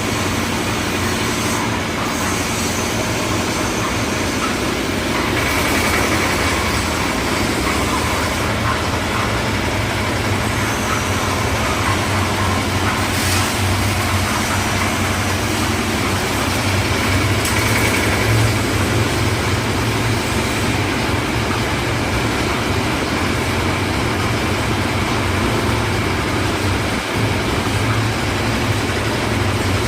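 Concrete mixer's engine running steadily, a continuous low hum with mechanical noise over it.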